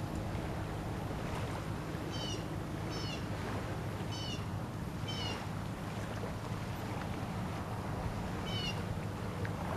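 A boat's motor runs with a steady low rumble and wind on the microphone, while a bird gives a short high mewing call five times: four at about one-second spacing, then one more near the end.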